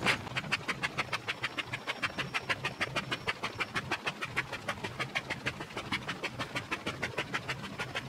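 Inflatable camping sleeping pad being pumped up by foot through its built-in foot pump: a quick, even run of short air puffs, about five or six a second, as the pad fills.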